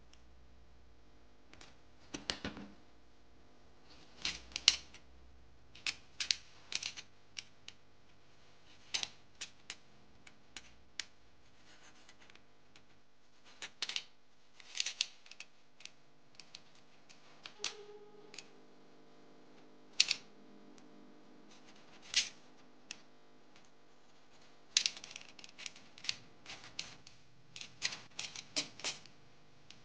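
Scissors and a utility knife snipping and scraping the insulation off thin wire leads. It comes as short, sharp clicks and snips at irregular intervals, bunched into quick runs near the end.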